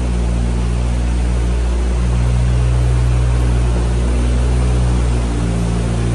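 Semi truck's diesel engine running with a steady low drone.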